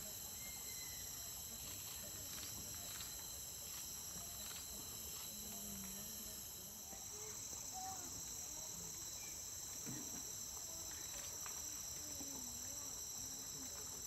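Steady rainforest insect chorus: several high, unbroken shrill tones layered together. Faint low voices murmur now and then underneath.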